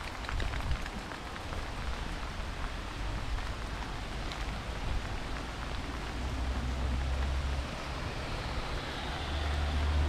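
Steady rain hissing on grass and a wet path, with the low hum of road traffic on a nearby bridge that swells twice, in the second half and again near the end.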